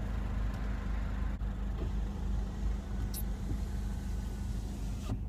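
Vauxhall Zafira ecoFLEX engine idling steadily, heard from inside the car's cabin.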